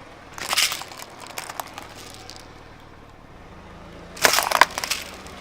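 Objects crunching and crackling as a car tyre crushes them, in two bouts: one about half a second in, trailing off into scattered cracks, and a louder one near the end.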